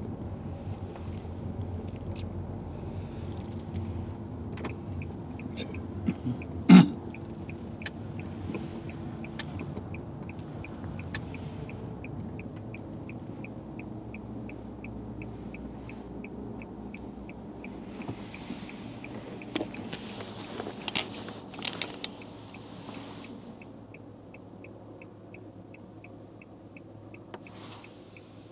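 Inside a car's cabin: the low engine and tyre noise of a car driving slowly, which quietens about three quarters of the way through as the car comes to a stop. A turn-signal indicator ticks at about three ticks a second, stops, then ticks again near the end. A short sharp squeak about seven seconds in is the loudest sound, with a few clicks about twenty seconds in.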